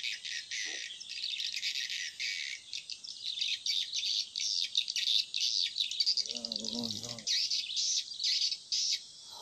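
Birds chirping and twittering without pause, a dense, high-pitched chatter. About six seconds in, a brief low voice-like sound lasting about a second.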